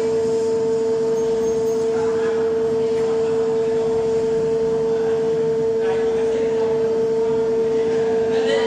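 Hydraulic pump of a concrete testing machine running as it loads a concrete beam in a flexural test: a steady, unbroken whine of one pitch with fainter overtones.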